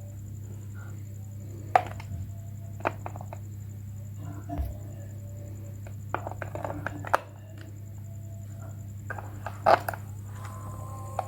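Scattered sharp taps and knocks of small objects being handled, a few louder clicks among them, over a steady low electrical hum.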